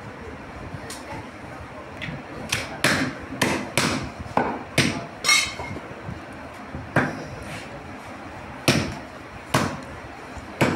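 Meat cleaver chopping beef ribs on a wooden tree-trunk chopping block: about a dozen sharp blows at uneven intervals, coming fast in the first half and slower later. One blow about five seconds in gives a short metallic ring.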